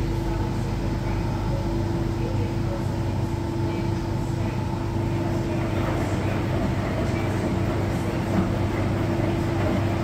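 Electrolux Professional WN6-14 commercial front-loading washer in its wash cycle: the drum turning and the load sloshing through soapy water, over a steady machine hum with one constant tone.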